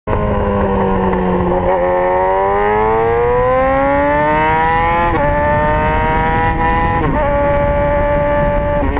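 Straight-piped 2012 Yamaha R6's inline-four engine accelerating through the gears, its pitch climbing and then dropping briefly three times, about two, five and seven seconds in, as the quick shifter snaps through each upshift without the throttle closing.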